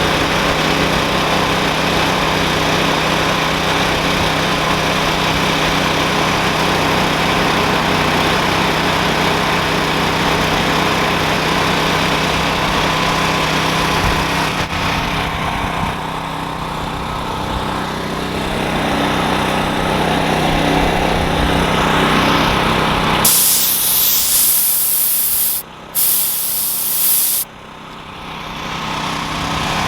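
Ryobi 6500-watt portable generator's engine running steadily. About 23 seconds in, a loud hiss of compressed air from a 5-gallon pancake air compressor sounds in two blasts, with a brief break between them.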